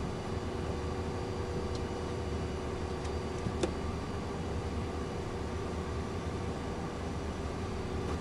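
Steady cabin hum of a twin-engine business jet idling on the ground, with a constant whine over a low rumble, and a faint click about three and a half seconds in.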